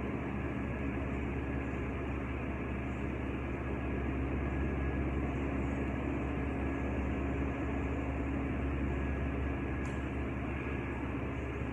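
Steady hum and rush of air from a running air-conditioning unit, even throughout, with one faint click about ten seconds in.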